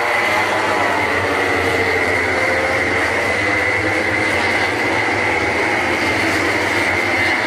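MotoGP racing motorcycles, 1000 cc four-cylinder prototype engines, running hard as the pack goes by, a loud steady din with pitches sliding up and down as riders shift and brake.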